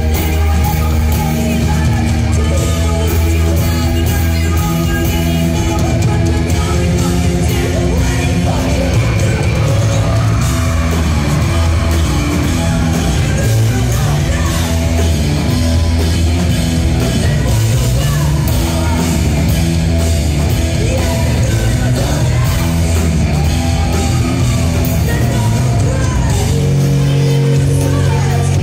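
Rock band playing live at full volume, with drums, electric guitars and keyboards and a woman singing.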